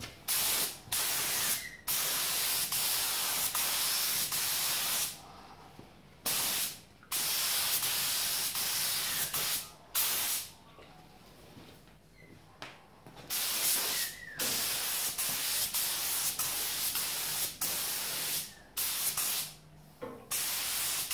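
Compressed-air gravity-feed spray gun with a 1.8 mm nozzle hissing as it lays acrylic black paint onto a motorcycle fuel tank. The hiss comes in repeated bursts of under a second to a few seconds as the trigger is pulled and released for each pass, with short pauses between.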